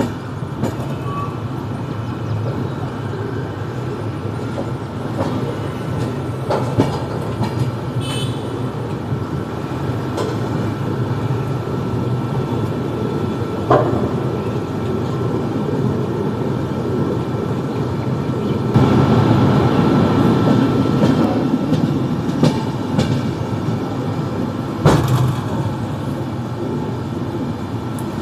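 Passenger train running on the rails: a steady rumble with a thin steady whine and occasional sharp clacks, growing louder about two-thirds of the way through.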